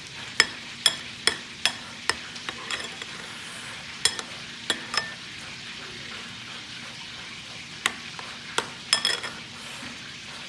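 Metal spoon stirring a thick mayonnaise-and-ketchup sauce in a ceramic bowl, scraping and clinking sharply against the bowl at irregular moments, most often in the first couple of seconds and again near the end. A steady frying sizzle runs underneath.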